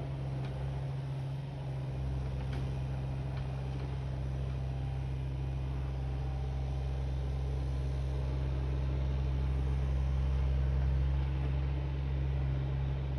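Mini excavator's diesel engine running steadily under hydraulic load as the machine pushes its arm against a tree, a low steady drone that swells slightly about ten seconds in.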